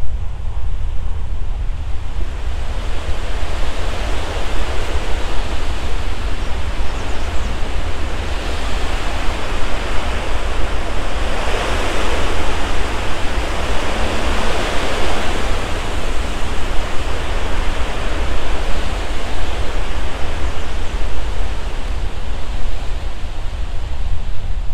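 A loud, steady rush of noise over a heavy low rumble. It builds over the first few seconds, swells to its fullest about halfway through, then eases back.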